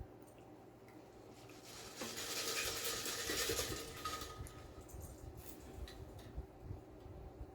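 Eating and food-handling noise at the table: a rustling scrape lasting about two seconds, followed by scattered small taps and clicks.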